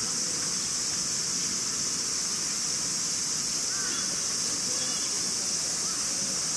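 Steady high-pitched drone of a summer cicada chorus. A few faint short chirping calls come about four seconds in.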